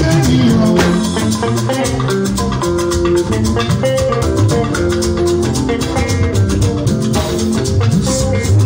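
Live band music with shaken beaded gourd rattles (shekere) and drums over pitched instrument notes, playing continuously with a busy percussive rhythm.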